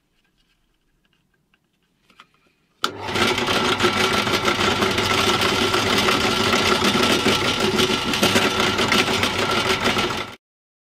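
Bench drill press starting with a click about three seconds in, its motor running steadily while a small twist bit drills through a wooden ball. The sound cuts off suddenly near the end.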